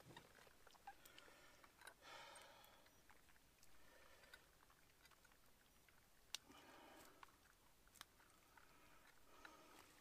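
Faint rustling of a fabric fish weigh sling being handled and lifted by its handles, with a few soft clicks and one sharper click about six seconds in.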